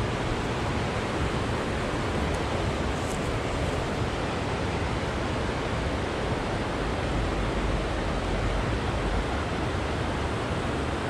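Steady rushing noise with no distinct events, with a low rumble beneath it.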